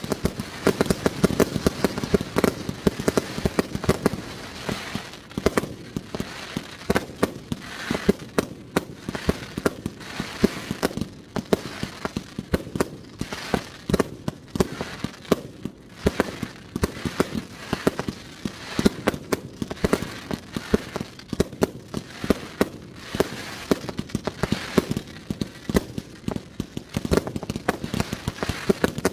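Professional 1.3G display fireworks firing from 100-shot basins: a dense, continuous stream of launches and bursts, many shots a second.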